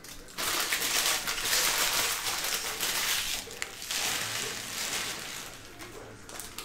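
Foil Panini Prizm Basketball hobby-pack wrappers crinkling as they are handled, starting about half a second in and loudest over the next few seconds, then softer.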